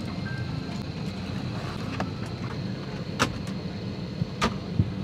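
Steady hum of an airliner cabin at the gate, broken by three sharp clacks about a second apart in the second half, as overhead luggage bins are latched shut.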